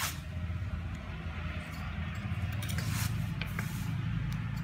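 Light metallic clicks and scrapes from hand-work on a small metal fitting attached to a wooden stick, a few sharp ticks spread through, over a steady low hum.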